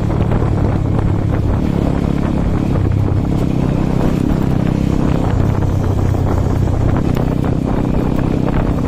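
Bajaj Pulsar RS 200's single-cylinder engine running through its stock exhaust while riding. The engine note climbs about two seconds in, drops back around five and a half seconds, and climbs again around seven seconds. Wind buffets the microphone throughout.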